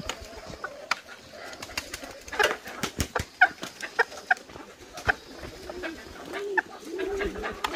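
Live roosters shut in a bamboo basket calling with short chirps, then low wavering calls repeating about twice a second from about six seconds in. Sharp clicks and knocks come from the baskets and their ties being handled on a motorbike rack.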